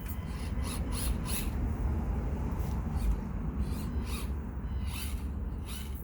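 Wind buffeting the microphone as a steady low rumble, with scattered short high crackles on top.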